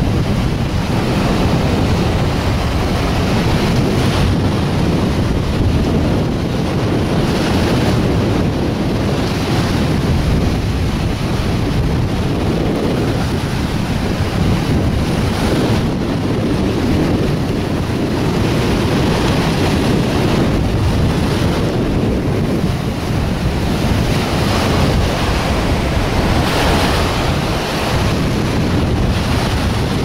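Strong wind buffeting the microphone over the steady rush of breaking surf.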